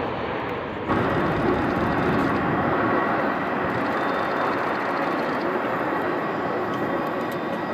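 Jet engine noise from a Boeing 747-400 rolling out along the runway after touchdown: a steady, loud rush that steps up in level about a second in.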